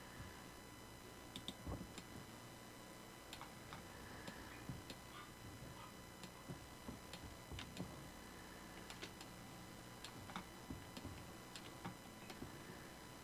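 Faint, irregular clicks of a computer keyboard and mouse, a few scattered through each second or two, over a faint steady electrical whine.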